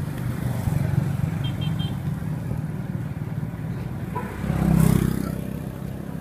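Motor vehicle engines running steadily in street traffic. One passes close and grows louder about four and a half to five seconds in. Three quick, short high beeps sound about a second and a half in.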